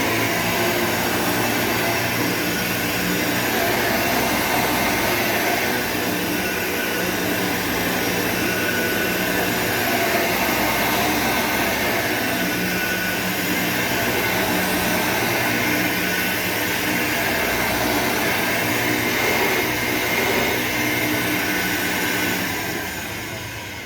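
Hoover Elite U4457-900 upright vacuum cleaner running steadily with a high whine, sounding really rough: its motor bearings, aged from years stuck in the box, need service. The sound falls off near the end.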